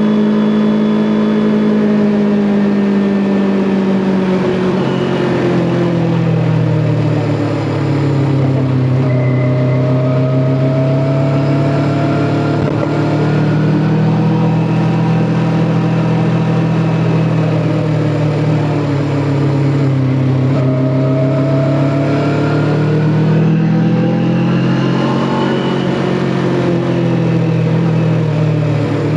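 Kawasaki Ninja 400's parallel-twin engine running under way, with wind and road rush. The engine pitch eases down about five seconds in, climbs again around thirteen seconds, sags, then rises and falls once more near the end as the throttle is opened and closed.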